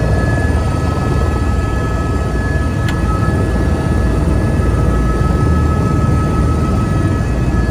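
Helicopter cabin noise: a steady low rotor rumble with a constant high-pitched engine whine, heard from inside a running helicopter. A single sharp click comes about three seconds in.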